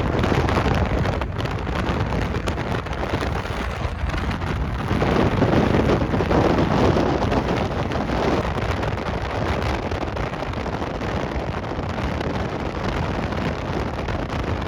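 Steady rumble and rushing noise of a vehicle driving on the road, with wind buffeting the microphone.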